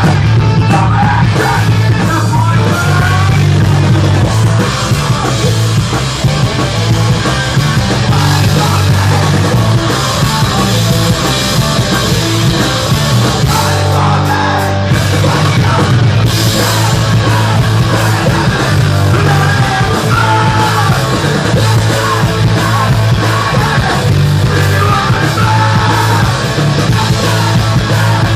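Live punk rock band playing loud, with bass notes stepping through the riff under drums and guitars, and a singer's vocals over the top.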